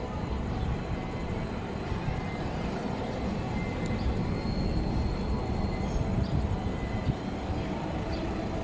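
Diesel locomotive rumbling steadily as it approaches slowly with a passenger train.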